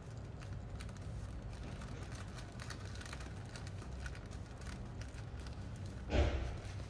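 Faint rustling and light ticking of paper and thin plastic gloves as a soft sponge cake is rolled up in the paper by hand, over a low steady hum. There is a louder rustle about six seconds in.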